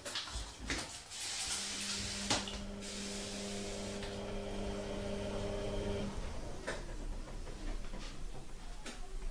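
An aerosol air-freshener can sprayed in one hiss of about a second, with a few light knocks. A steady hum runs alongside and stops about six seconds in.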